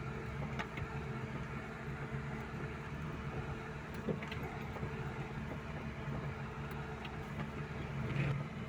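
Car engine running steadily, heard from inside the cabin while driving slowly over a rough, wet dirt track, with a few short knocks as the car goes over bumps. The engine hum swells briefly near the end.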